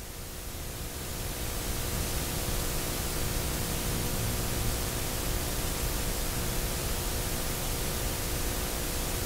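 Steady hiss of the recording's noise floor, swelling over the first two seconds and then holding level, with a faint hum of a few steady tones underneath.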